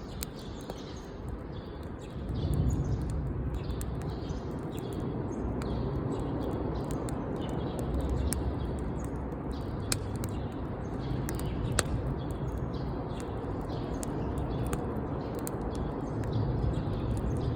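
Wood fire burning with irregular crackles and a few sharper pops, over a steady low rumble; birds chirp in the background.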